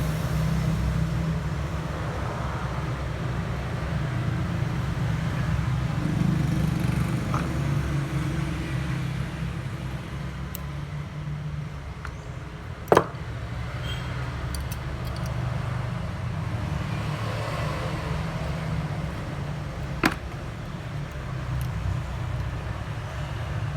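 Steady low rumble, with two sharp clicks: a loud one about halfway through and a fainter one later.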